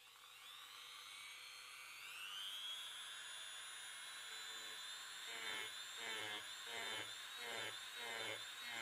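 Handheld rotary tool with a sanding drum spinning up, its whine rising in pitch over the first two seconds and then holding steady and high. From about halfway in, the drum is worked against the impact driver's metal nose housing in regular passes, about one and a half a second, the whine dipping with each one.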